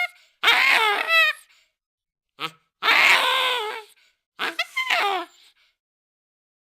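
Baboon screaming: four bouts of wavering, pitched calls with short silent pauses between them, one of them very brief.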